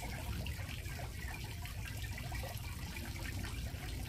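Steady background hiss with a low rumble underneath, and faint eating sounds of a man chewing rice from a bowl with chopsticks; no distinct event stands out.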